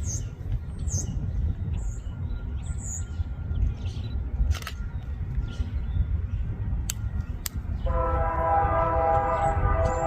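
A steady low rumble with birds chirping, then about eight seconds in a locomotive air horn starts sounding, a held multi-note chord. The horn is the Nathan K3HA on UP 6450, a C44ACM leading train ZYCEG.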